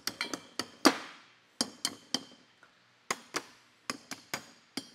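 Sharp, irregular taps on a hammer-formed sheet-metal panel, each with a short metallic ring. They come in quick runs of a few strikes, the loudest a little under a second in.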